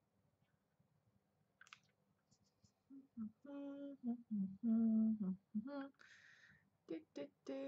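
A woman humming a wordless tune in held notes, starting about three seconds in, with a short breathy hiss midway before the humming picks up again.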